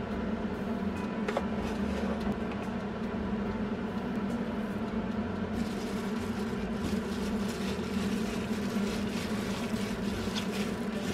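Raw ground meat, egg and breadcrumbs being kneaded by a plastic-gloved hand in a frying pan, with soft squishing and glove crinkling that gets busier about halfway through. All of it sits over a steady low hum.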